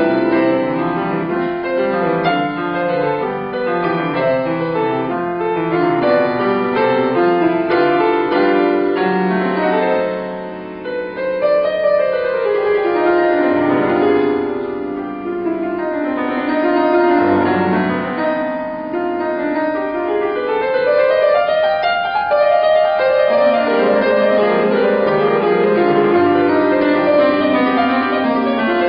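Grand piano played solo: a flowing piece with runs sweeping up and down the keyboard, going briefly softer about ten seconds in.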